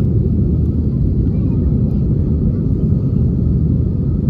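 Airbus A320 airliner running, a loud steady low rumble with no change in pitch.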